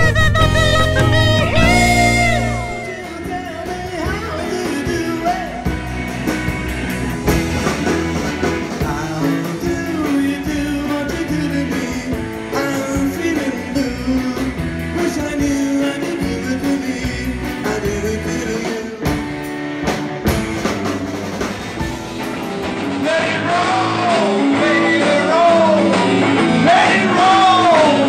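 Live rock band music with electric guitar, drums and singing, in a string of short clips. The sound changes abruptly about three seconds in and again near the end, where a sung melody comes to the fore.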